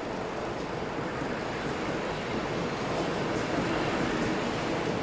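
ICE high-speed train cars rolling past close by: a steady rush of wheel and running noise that grows slightly louder toward the end.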